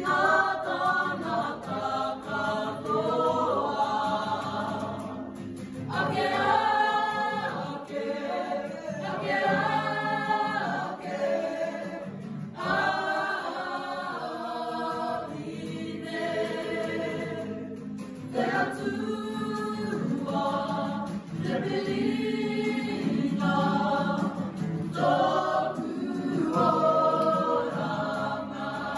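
A group of young performers singing a Māori waiata together, mixed voices in harmony, phrase after phrase with short breaths between.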